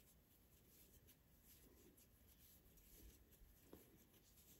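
Near silence, with faint scratching and small irregular ticks of a metal crochet hook pulling yarn through stitches.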